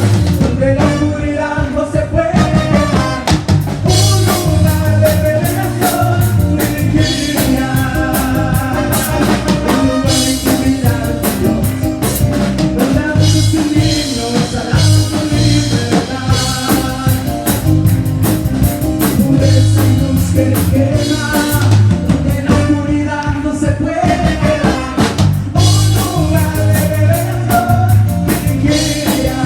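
A live worship band playing a song, with a singer's voice over drum kit and other instruments.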